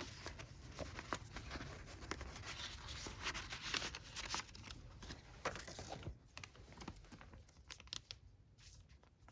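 Paper and plastic packaging rustling and crinkling as merchandise is handled, with many small clicks and taps; busier in the first six seconds, then quieter.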